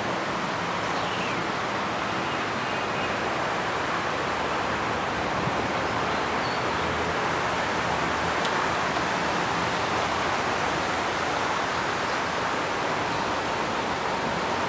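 Steady rushing of water from a garden cascade and fountains: an even, unbroken hiss that holds the same level throughout.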